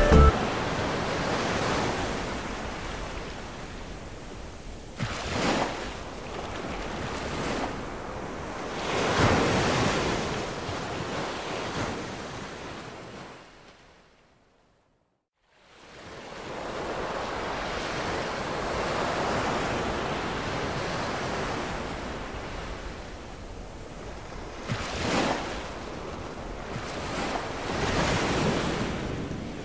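Ocean surf washing in, swelling and ebbing every few seconds. It fades out to silence about halfway through and fades back in.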